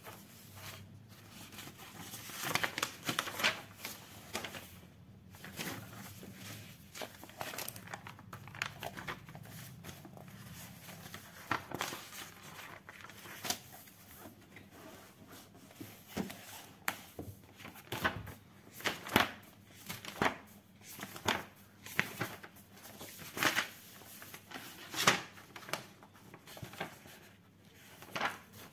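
Paper rustling and swishing as loose printed sheets are handled and notebook pages are turned, a run of short irregular rustles that come more often in the second half.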